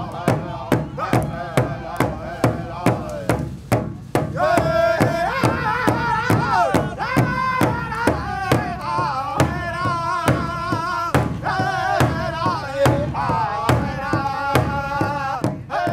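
Native American drum group: several men beat a large shared hand drum with sticks in a steady, even rhythm and sing together. The singing grows stronger from about four seconds in.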